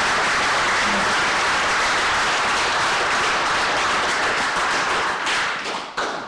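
Audience applauding, steady hand-clapping from a roomful of people that dies away near the end.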